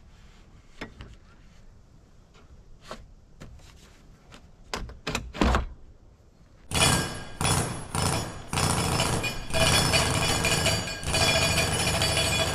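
Pressure-treated lumber boards knocked into place in metal joist hangers: scattered wooden thunks, the loudest a little before the middle. About halfway in, a power tool, likely an impact driver fastening the frame, starts rattling loudly and runs almost without a break.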